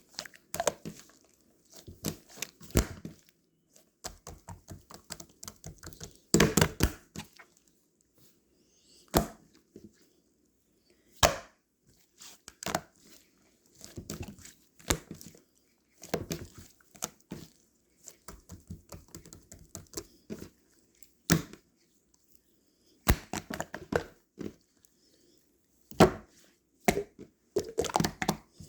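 Short, sharp bursts of crinkling, crunching and tearing handling noise, coming irregularly every second or two with quiet gaps between them.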